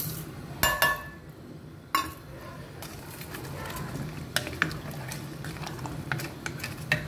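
A steel bowl clinks against an aluminium cooking pot a few times as spices are tipped in, with ringing clinks in the first two seconds. A spoon then stirs chicken, spices and water in the pot, with light repeated tapping and scraping on the metal.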